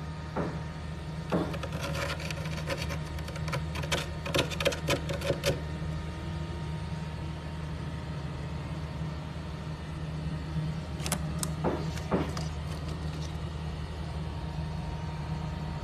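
A steady low hum with a series of sharp clicks and knocks in the first five seconds or so, and a few more around eleven to twelve seconds in.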